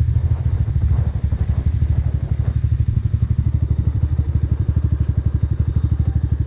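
Mahindra Mojo 300's single-cylinder engine running steadily at low revs, an even, rapid low putter.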